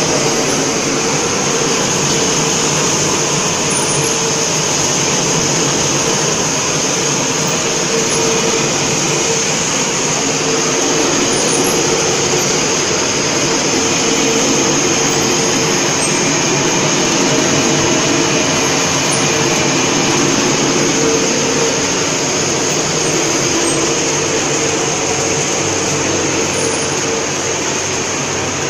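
Caramel popcorn production line running: a loud, even machine drone with a constant high hiss over a low hum, like a blower.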